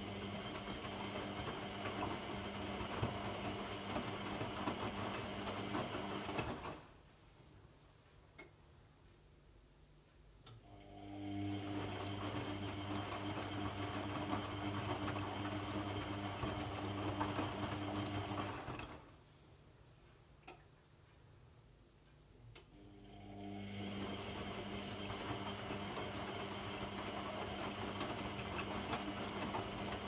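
AEG Lavamat 50435 front-loading washing machine's drum motor turning the wash during a rinse: three stretches of steady motor hum, each lasting about six to eight seconds, with pauses of about four seconds between them as the drum stops and starts again.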